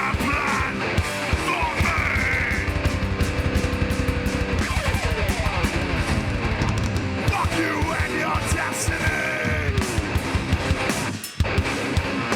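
Live heavy hardcore band playing an instrumental passage: distorted electric guitars, bass and fast, dense drumming, with sliding guitar lines and a short break about eleven seconds in before the band crashes back in.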